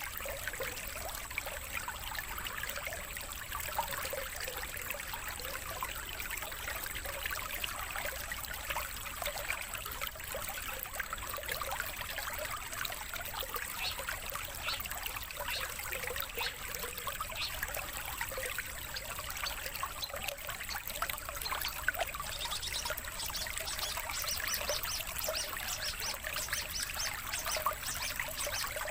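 Steady trickling stream water, with short high-pitched ticks scattered over it and a rapid run of them near the end.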